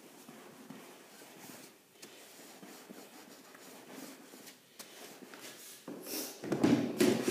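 Broom scrubbing floor-stripper solution into a wet hardwood floor to lift old paint and finish: faint wet swishing, then a few louder scrubbing strokes near the end.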